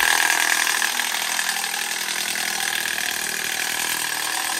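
Milwaukee M12 impact driver spinning a Malco Turbo Crimper, crimping the end of a round sheet-metal duct pipe, running steadily at its second speed setting.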